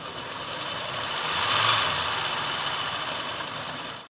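3D-printed PLA Formula One-style gearbox running, driven by a 55-turn 540 electric motor through helical drive gears: a steady mechanical whir of spinning gears with a whine, growing louder about halfway through and easing again, then cutting off suddenly at the end.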